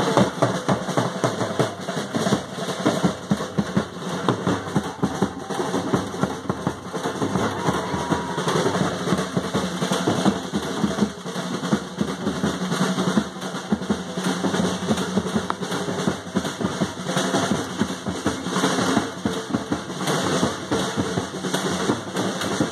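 Drums beaten in a fast, dense, continuous rhythm, the percussion that accompanies a Ganesh immersion procession.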